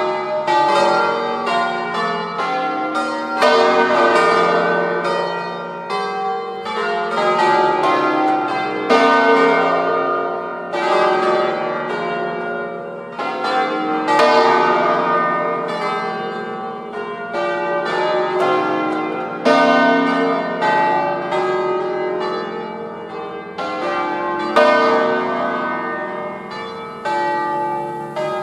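A peal of eight bronze church bells in B-flat, cast by Mazzola of Valduggia in 1882, swinging full circle and ringing continuously. Their strokes overlap and each rings on as it fades, and the loudest strokes come about every five seconds.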